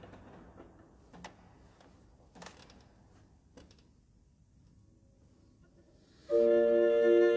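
A few small knocks and rustles as the cellist readies his bow, then about six seconds in a bowed cello begins a slow piece over a held chord.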